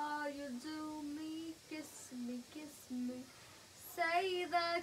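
A girl singing a tune in short held notes that step up and down in pitch, louder for a moment near the end.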